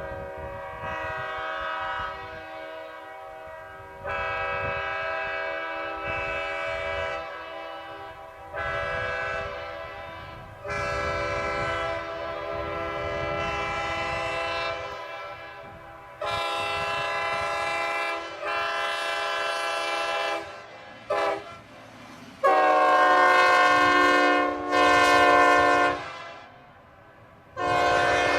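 Multi-chime locomotive air horns blown on compressed air, sounding a chord of several notes in a string of blasts lasting from under a second to several seconds. About two-thirds of the way through a louder, lower-pitched chord comes in, its pitch rising slightly as it starts.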